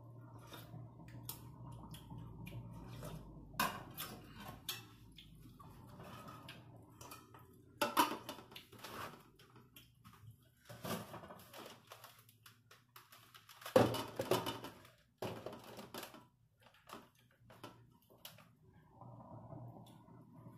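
Kitchenware clinking and knocking as soup is served: a metal ladle and spoon against enamel bowls and a large aluminium pot and its lid, in scattered knocks, the loudest about eight and fourteen seconds in. A low steady hum sits underneath.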